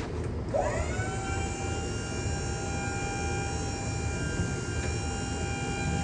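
Electric motor on a remote-controlled hopper trailer. About half a second in it spins up with a rising whine, then holds a steady high whine. A low steady rumble runs underneath.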